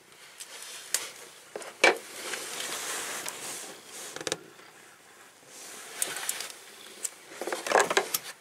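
Hands handling the alternator wiring and connector: rustling and scraping with a few sharp clicks.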